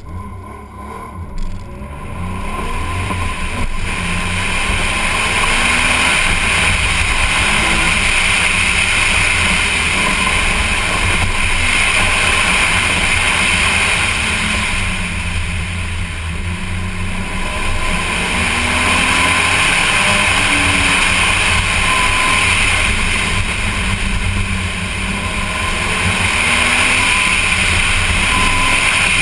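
Autocross car's engine under hard acceleration through a timed run. It pulls hard from the launch, and the pitch rises and falls with throttle and gear changes. It eases off twice in the middle of the run before pulling hard again.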